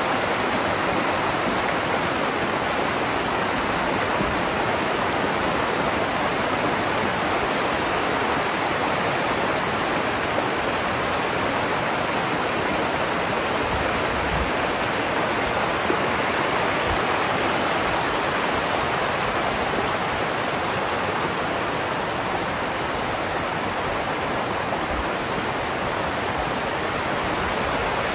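Steady rushing of flood runoff flowing down a river, an even unbroken roar of water.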